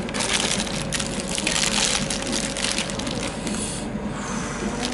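Paper burger wrapper crinkling and rustling as it is peeled open by hand, with a short lull near the end.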